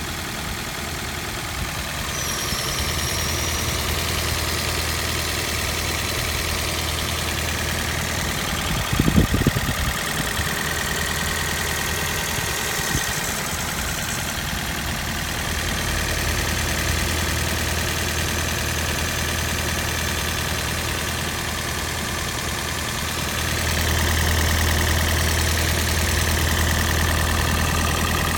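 Toyota 1NZ-FXE 1.5-litre four-cylinder engine of a second-generation Prius running with a knock that began after a decarbonizing treatment; the owner reports no other faults or error codes, with plugs and coils already replaced. The drone gets louder a couple of times, and a short cluster of heavier thumps comes about nine seconds in.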